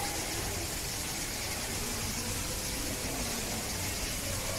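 Steady background hiss with faint, indistinct voices in the distance.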